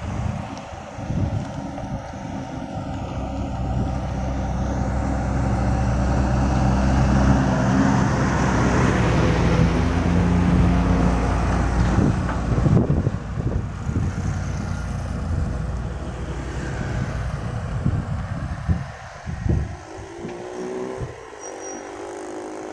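Road traffic passing close by. A concrete mixer truck's diesel engine and tyres build to their loudest about ten seconds in as it goes past, with lighter vehicles and motorcycles passing before and after.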